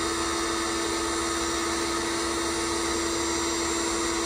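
An 1800 PSI pressure washer running steadily with a constant whine, driving water through a sewer jetter hose and nozzle fed into a kitchen drain line.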